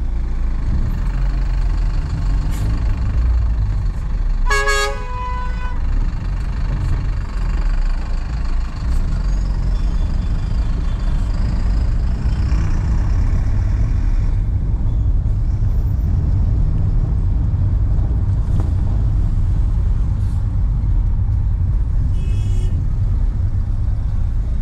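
Steady engine and road rumble of a car driving in city traffic, with a car horn honking briefly about five seconds in and another short, higher-pitched horn toot near the end.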